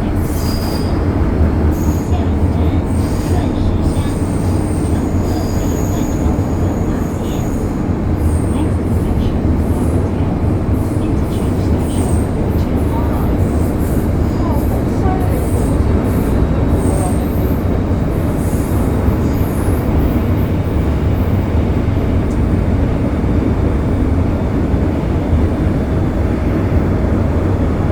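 MTR M-Train electric multiple unit running along the track with a steady low rumble, while the wheels let out short, high-pitched squeals on and off through most of the run.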